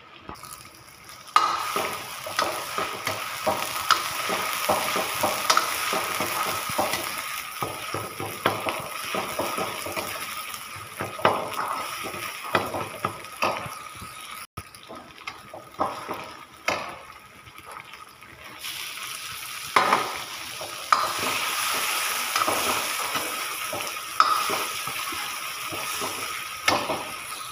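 Chopped onions and bay leaves sizzling in hot oil in an iron kadhai, with a steel ladle stirring and clinking against the pan. Chopped tomatoes go in partway through, and the sizzle is louder again near the end.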